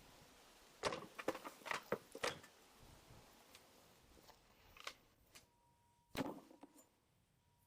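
Kitchen items being handled during food preparation: a quick run of light clicks and clatters between about one and two and a half seconds in, then a couple of single knocks later on. A faint steady high tone sounds in the second half.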